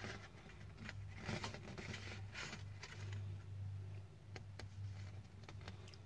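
Paper rustling as a folded CD lyric insert is handled and slid through the fingers: three short swishes in the first few seconds, then a few light ticks. A low steady hum runs underneath.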